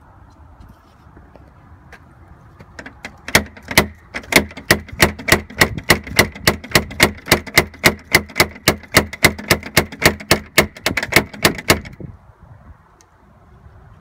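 Rapid, steady knocking on a front door, about four sharp knocks a second, starting about three seconds in and stopping abruptly about nine seconds later.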